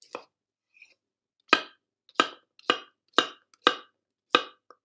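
A kitchen knife chopping courgette on a cutting board. One light stroke, then a steady run of six firm chops about half a second apart.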